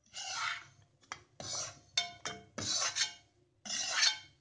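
Metal spatula scraping roasted wheat flour out of a kadhai, about six separate scraping strokes with a few sharp clinks of metal on the pan.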